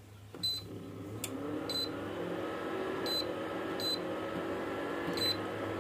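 Geepas GIC33013 infrared cooker's touch panel beeping five times, short high beeps, as it is switched on and its power setting is stepped. Its cooling fan spins up with a hum that rises in pitch, then runs steadily. The cooker is running normally with its E5 overheat-sensor error cleared.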